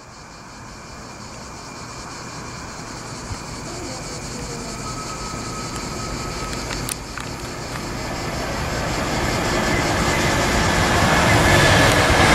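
Akiem BB 37000 electric locomotive hauling an intermodal container freight train, approaching and growing steadily louder, with high whining tones coming in near the end.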